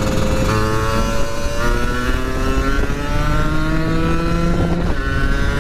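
Kawasaki Ninja SS 150's two-stroke single-cylinder engine pulling hard under acceleration, its KIPS power valve disabled; the engine note climbs steadily, with small jumps about half a second, a second and a half and five seconds in.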